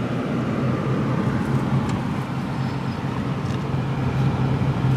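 Steady road noise heard from inside a moving car's cabin: a constant low engine drone with tyre rumble.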